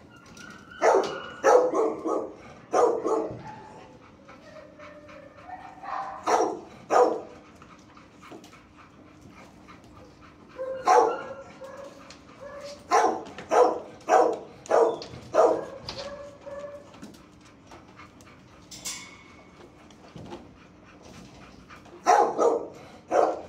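Dogs barking in an animal shelter's kennels, in clusters of several sharp barks with pauses between, over a faint steady hum.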